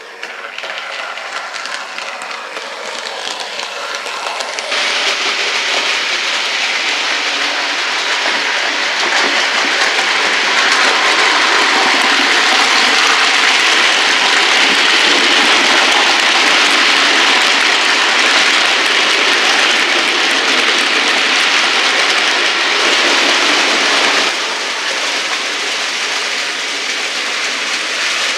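OO gauge model freight trains running past on the layout: a steady rattling hiss of small metal wheels on the rails and rail joints. It grows louder over the first few seconds, jumps up about five seconds in, and drops suddenly a few seconds before the end.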